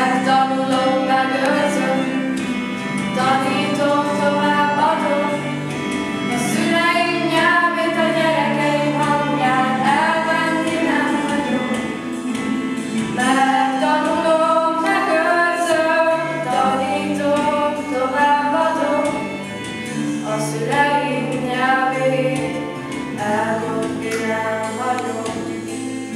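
A children's choir, mostly girls' voices, singing a song together over held instrumental chords.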